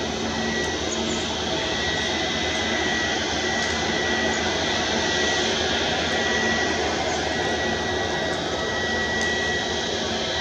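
CFM LEAP-1A turbofan of an Airbus A320neo running steadily on the ground: an even rushing noise with a thin, high, steady whine over it.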